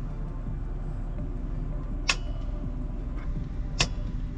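Two sharp clicks about two seconds apart from a hand crimping tool closing on the fan's wire connectors, over a steady low hum.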